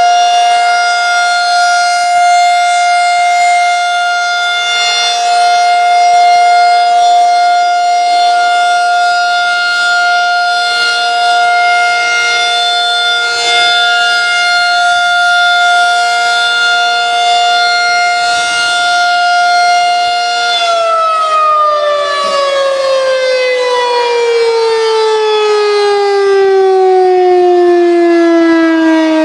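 Federal Signal 2001-SRN tornado siren sounding a steady, loud tone. About two-thirds of the way through it begins winding down, its pitch falling steadily as the rotor slows.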